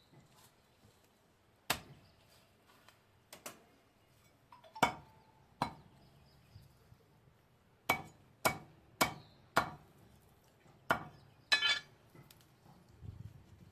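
Butcher's cleaver chopping through chicken, about a dozen sharp chops at an uneven pace, with a quicker run of strokes in the second half.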